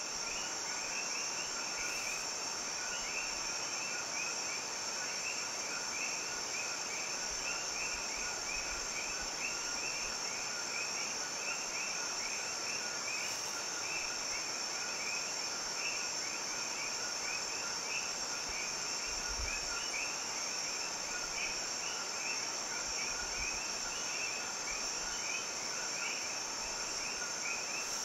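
Steady outdoor insect chorus: a continuous high shrill hum with a fast, unbroken stream of chirping beneath it.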